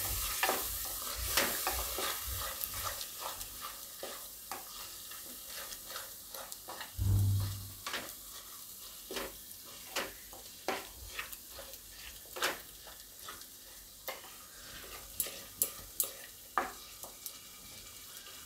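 A spatula stirring and scraping a thick curd-and-tomato masala in a non-stick kadai, with irregular clicks of the spatula against the pan. The masala cooks with a faint sizzle, and there is one low bump about seven seconds in.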